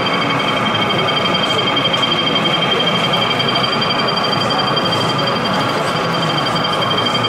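Steady background chatter of a busy exhibition hall crowd, with a constant high-pitched whine underneath.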